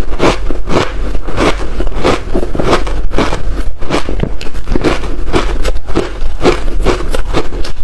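Close-up crunching of hard ice chunks dusted with matcha powder, bitten and chewed: a fast, irregular run of sharp cracks and crackles, several a second, over a low steady hum.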